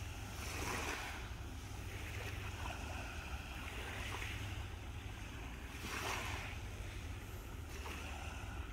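Small sea waves washing onto the shore in soft swells every second or two, the strongest about six seconds in, over a low steady rumble.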